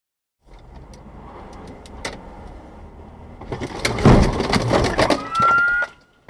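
Car collision at an intersection: street traffic noise, then a loud crunch of impact about four seconds in, followed by knocks and clatter and a short, slightly rising held tone just before the sound cuts off.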